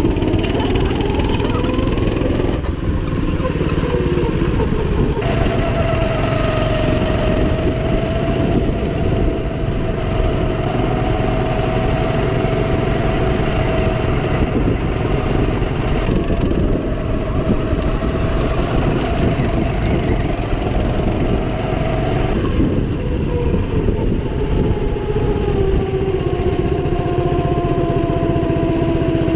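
Go-kart's small engine running hard, heard from the driver's seat. The engine note climbs in the first couple of seconds, holds steady for most of the stretch, then falls in pitch in the last several seconds.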